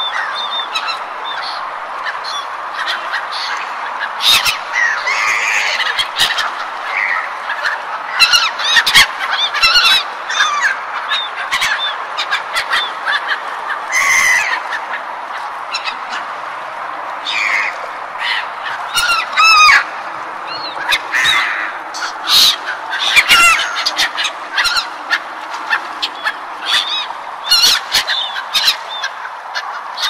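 A flock of gulls calling, many short harsh cries overlapping at irregular intervals, over a steady background noise.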